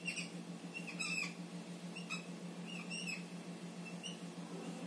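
Whiteboard marker squeaking in a string of short, high strokes as a dashed chain line is drawn, one squeak for each dash.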